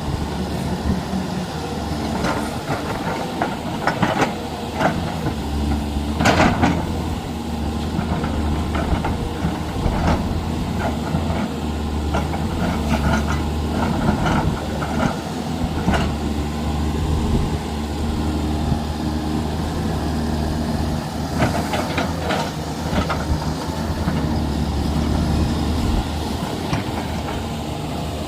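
Heavy diesel machinery engine running steadily at a work site, with several sharp knocks at irregular intervals.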